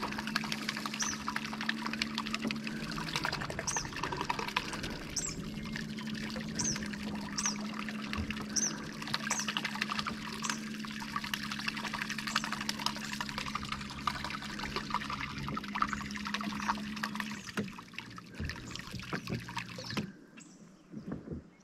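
Small boat motor running steadily with its propeller set shallow, churning and splashing at the water's surface; the motor's hum stops about three-quarters of the way through. Short high chirps repeat over the splashing in the first half.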